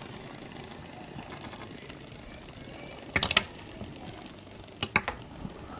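A fidget spinner spinning in a Lego contraption as it runs into a row of Lego minifigures: a short burst of plastic clattering about three seconds in as figures are knocked over, then a few sharp plastic clicks near the end.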